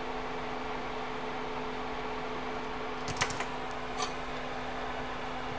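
A fan running steadily, a constant hiss with a low hum under it, with a few sharp clicks just after three seconds in and one more at about four seconds.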